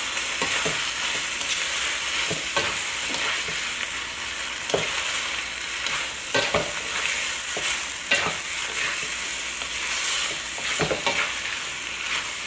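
Pad see ew (wide rice noodles, pork, egg and Chinese kale) sizzling in a nonstick wok, stirred and tossed with a spatula. The spatula scrapes and knocks against the pan irregularly over a steady frying hiss.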